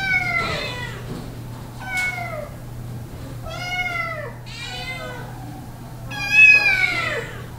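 Cats and kittens meowing, about six separate meows, most falling in pitch, the loudest one near the end.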